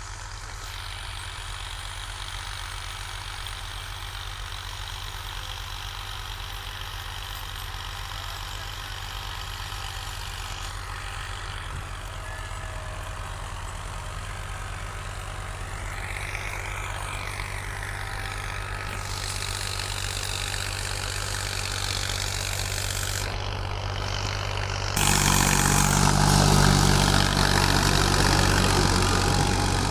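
Diesel farm tractor engine running steadily under load while pulling a disc harrow through dry soil. It grows slowly louder, then becomes suddenly much louder about 25 seconds in as the tractor is heard up close.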